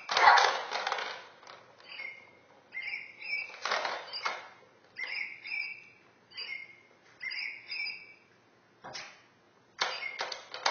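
A puppy batting and pawing at a plastic cat toy with a ball track: bursts of plastic clattering and rattling, the loudest right at the start and others about four seconds in and near the end. Short, high chirping squeaks come again and again in between.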